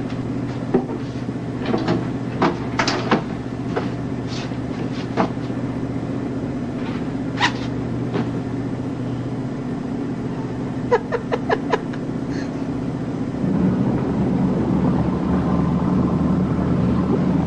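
Steady low engine hum of a naval patrol boat heard below decks, with scattered clicks and knocks of galley cupboards and utensils being handled. About three-quarters of the way through it changes to a louder, rougher rumble of the boat under way.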